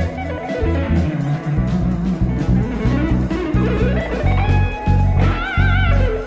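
Instrumental band music: an electric guitar plays a lead line over bass and drums, with bent notes and a wide vibrato near the end.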